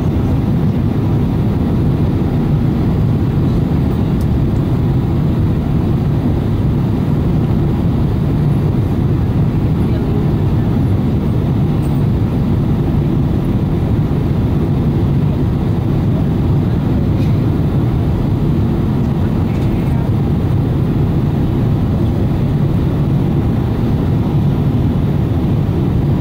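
Steady low-pitched cabin noise of a jet airliner on approach to landing, the hum of its engines and the rush of air around the fuselage, heard from inside the cabin.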